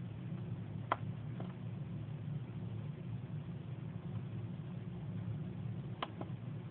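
Two clicks of a small tactile pushbutton on a PIC microcontroller board, each a press followed by a fainter release. The first, about a second in, stops the stopwatch count; the second, near the end, resets it. A steady low hum runs underneath.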